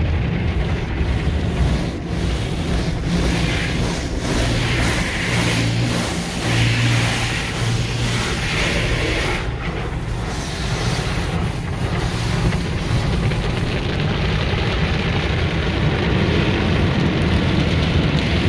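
The water spray and spinning cloth brushes of an automatic tunnel car wash working over the car, heard from inside the closed cabin: a steady noise that swells louder for a few seconds in the middle.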